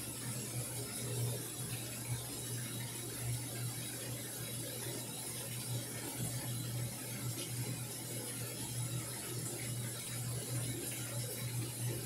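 Samsung washing machine filling: a stream of water pouring into the stainless steel drum onto the clothes, a steady splashing hiss over a low, fluttering hum.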